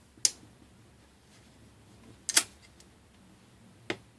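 Sharp small clicks of an iPhone 5 screen assembly being handled and pressed into its frame: one click, a quick double click about two seconds later, and another about a second and a half after that.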